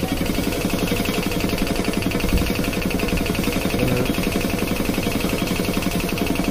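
Compressed-air spray painting: a gravity-feed spray gun spraying paint, heard as a steady noise with a fast, even pulsing.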